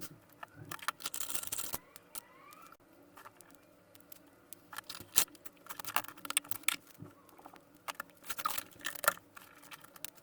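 Small handling noises at a workbench: scattered clicks and taps, with two short scraping rustles, one about a second in and one near the end.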